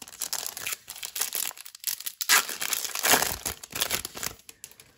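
A Bowman Chrome baseball card pack being torn open, its wrapper crinkling in a run of sharp crackles. The crackling is loudest in the middle and dies away shortly before the end.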